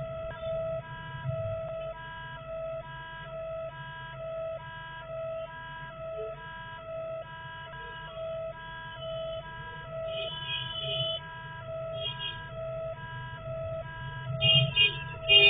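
Level-crossing warning alarm sounding as the boom barrier closes: a pulsing electronic tone, about one and a half beeps a second, over a steady tone. Louder harsh blasts come near the end.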